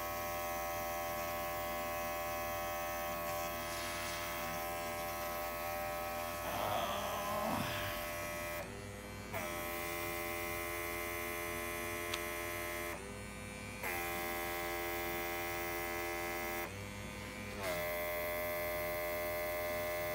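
Small airbrush compressor running with a steady hum, with the hiss of air from the airbrush blowing across wet acrylic paint. Three times the hiss cuts out for about a second while the motor's hum drops in pitch, as the air is let off.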